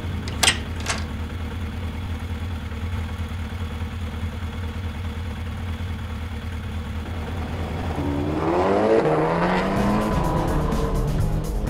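Motorbike engine sound idling steadily, then revving up in a long rising pitch near the end. Two sharp clicks about half a second in.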